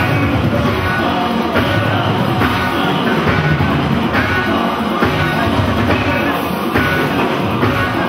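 Loud live band music with a drum kit keeping a steady beat, about one stroke every 0.8 seconds, and voices singing over it.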